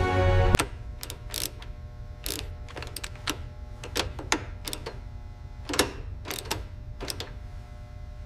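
Loud music cuts off about half a second in. Then comes a run of sharp, irregular mechanical clicks and clacks, about one or two a second, from tool work on bolts, over a faint steady hum.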